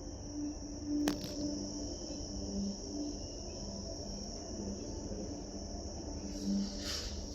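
Insects shrilling in one unbroken high-pitched drone, with a single sharp click about a second in.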